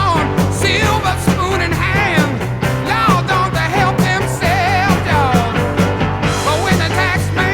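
Rock song with a singing voice over a steady bass line, laid over the video as background music.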